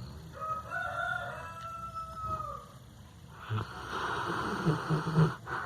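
A sleeping dog snoring, a rough noisy snore in the second half. Near the start there is a long, held call about two seconds long, pitched fairly high.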